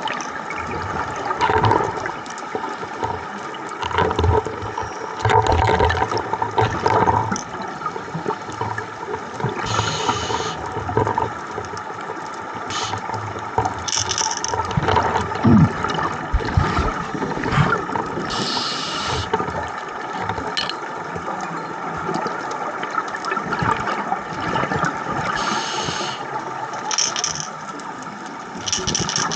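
Underwater sound of scuba diving: bursts of bubbling hiss from divers' regulators every few seconds, over a steady hum and water noise.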